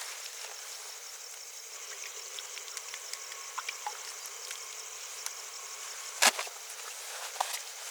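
Steady high-pitched chirring of insects in the evening forest, with a few faint clicks and one sharp knock about six seconds in.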